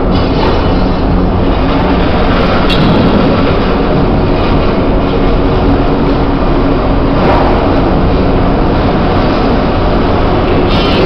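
A machine running steadily, with a constant low hum under a loud rumble.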